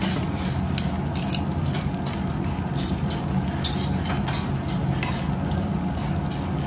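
Metal tongs, a ladle and chopsticks clinking and scraping against a shallow stainless steel pot and small dishes as a pot of rabokki is stirred and served, in many short irregular clinks. A steady low hum runs underneath.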